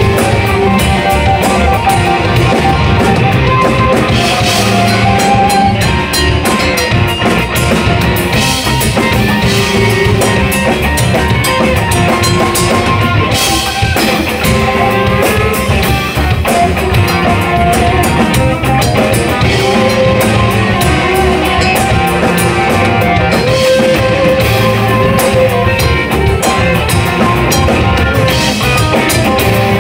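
Live electric blues band playing in the Chicago style, with drum kit and electric guitar to the fore over bass; loud and steady.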